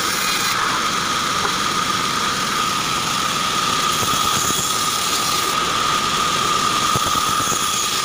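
Band saw running steadily and cutting short acacia log sections, a continuous machine noise with a steady high-pitched whine.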